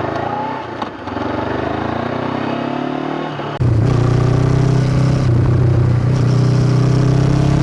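Honda CB500X's 471 cc parallel-twin engine through a Staintune exhaust, accelerating with its pitch rising. About halfway through, loud rock-style music with a heavy bass cuts in suddenly over it.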